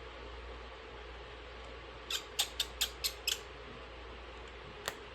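A quick run of six small, sharp clicks, then one more near the end: small repair tools clicking against iPhone parts during reassembly.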